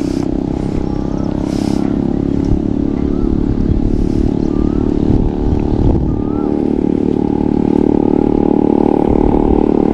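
A small engine running steadily at an even speed, then cutting off abruptly. Short faint chirps sound over it about every second and a half.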